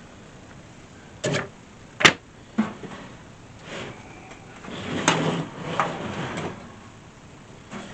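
Parts being handled: a few knocks and one sharp click, then a couple of seconds of scraping and rustling.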